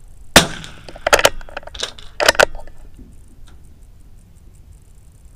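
A single .22 LR shot from a Keystone KPT722 bolt-action rifle firing CCI Pistol Match about half a second in, with a short ring-out. It is followed by two quick clusters of metallic clicks and clacks about one and two seconds in, which fit the bolt being cycled for the next round.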